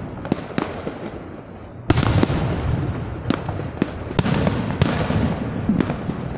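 Aerial firework shells bursting overhead: a string of about ten sharp bangs with crackling between them, the loudest about two seconds in.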